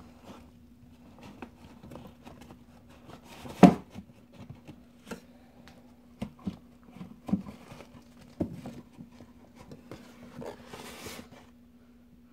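A toddler moving about and handling things: scattered light knocks and taps, one much louder knock about three and a half seconds in, and a short rustle near the end, over a steady low hum.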